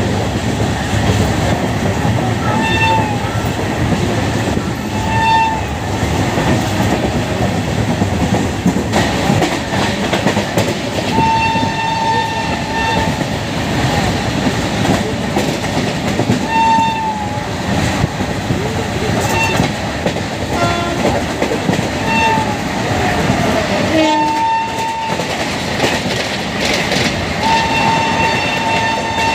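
Indian Railways electric locomotive horn sounding a shrill note again and again, some honks short and a few held for a second or two, over the steady rumble and clickety-clack of a moving train heard from on board.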